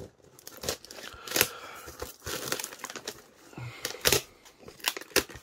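Clear plastic wrap crinkling and crackling in irregular bursts as it is slit with a small knife and pulled off a box, with a few louder crackles about one and a half and four seconds in.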